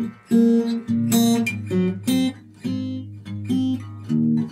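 Acoustic blues guitar playing an intro: a steady run of plucked and strummed notes, about two a second.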